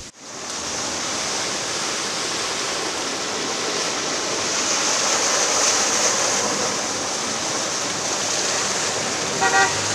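Rushing, splashing water from vehicles' tyres ploughing through a flooded street, a steady wash of noise that swells slightly about midway. A brief pitched sound near the end.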